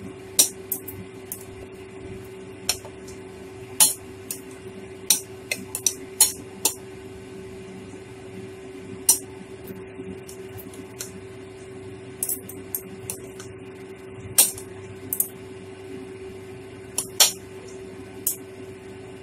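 Knife blade clicking against a ceramic plate while cutting fried fish into small pieces: sharp, irregular clinks, sometimes two or three close together, over a steady low hum.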